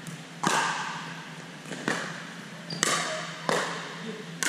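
Pickleball rally: a hard plastic ball hit by paddles and bouncing on the court floor, making six sharp pops spaced from about half a second to a second and a half apart. Each pop rings on in the echo of a large hall.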